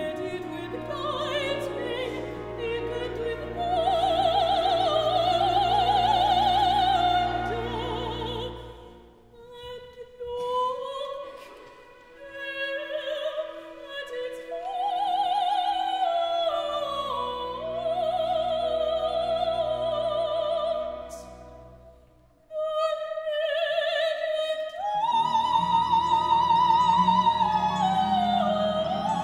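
Mezzo-soprano singing a slow operatic solo with wide vibrato on long held notes, over an orchestra holding low sustained notes. The music thins out briefly about nine seconds in and again around twenty-two seconds before the next phrase.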